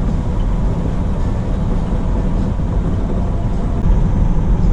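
Semi truck driving at highway speed, heard from inside the cab: steady engine and road noise, mostly low in pitch, a little louder about four seconds in.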